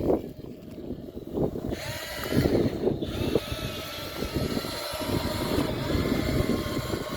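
Small electric motors and plastic gearboxes of remote-controlled toy construction vehicles whining, over an uneven rumble of noise.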